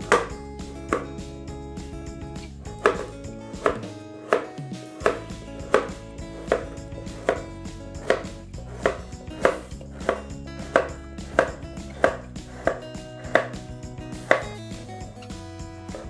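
Kitchen knife slicing a carrot into thin rounds on a plastic cutting board: a steady series of sharp chops as the blade meets the board, a little more than one a second.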